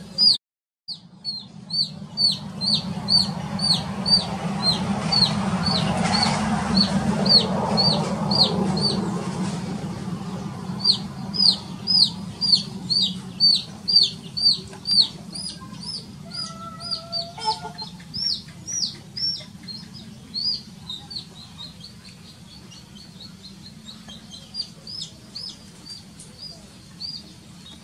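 A baby chick peeping over and over, short high calls that each fall in pitch, two or three a second: the distress calls of a chick stuck in a basin of water. A rushing noise swells and fades underneath in the first third, and the peeps grow fainter after about twenty seconds.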